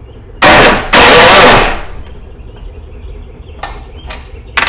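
Electric starter of a 7 hp XTREME POWER gasoline engine cranking it over in two short, loud bursts about a second in, without the engine catching: there is no fuel in it, so it only turns over. A few brief knocks follow near the end.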